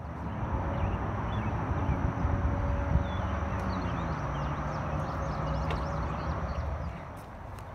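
Wind buffeting the microphone on an open rooftop, a steady low rumbling that starts suddenly and eases near the end, with faint bird chirps in the middle.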